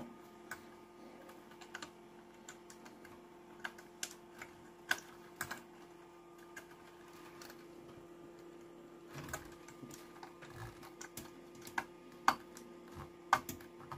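Scattered light clicks and taps of small hand tools working on an amplifier circuit board, over a faint steady hum.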